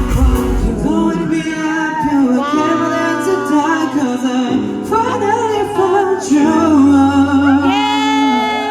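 Male J-pop vocal group singing live over an amplified backing track. Drums and heavy bass sound at the start, then the voices carry sliding, sustained notes over a steady bass line, ending on a long held high note.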